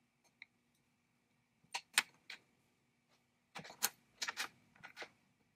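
Spark plug clicking and scraping against the cylinder head of an Ohlsson and Rice Drillgine's small engine as it is set into the plug hole and threaded in by hand. There are a few sharp metal clicks about two seconds in, then a quicker cluster of clicks near the end.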